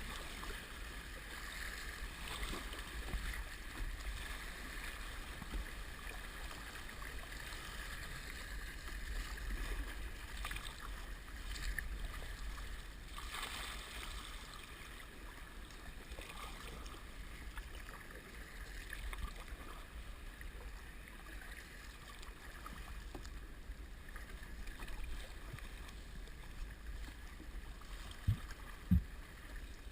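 Kayak paddling heard through a sealed GoPro waterproof housing: a steady, muffled low rumble with faint water splashes and sloshing, and two short low thumps near the end.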